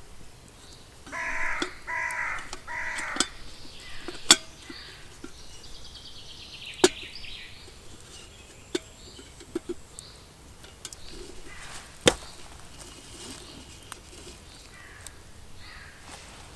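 A crow cawing three times in quick succession, then a few scattered sharp knocks or clicks, each louder than the caws.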